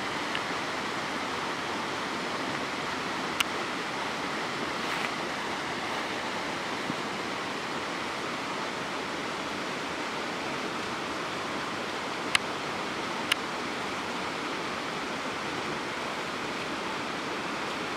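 Steady rushing of a stream, with a few sharp clicks breaking through: one about three seconds in and two close together near the end.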